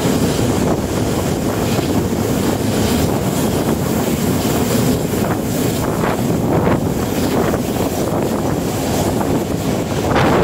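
Wind buffeting the microphone over the steady running noise of a moving train.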